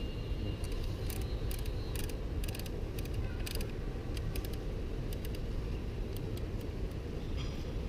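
A steady low rumble with a run of sharp, irregular mechanical clicks and ticks over it, densest in the first few seconds and thinning out toward the end.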